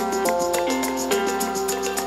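Background music: held instrument notes that shift in pitch over a quick, steady percussion beat.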